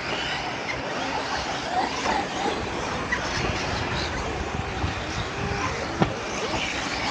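Arrma Fireteam radio-controlled car with a brushless motor running on 8S power, with a sharp click about six seconds in.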